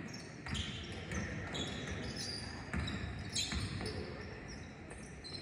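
Basketball being dribbled on a hardwood gym floor, with short high sneaker squeaks from players running on the court.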